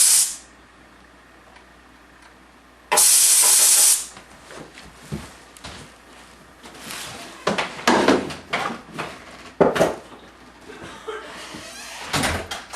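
A second-long blast of compressed air from an air nozzle about three seconds in, then a run of irregular clicks and knocks as the spark plug is turned out with a socket wrench.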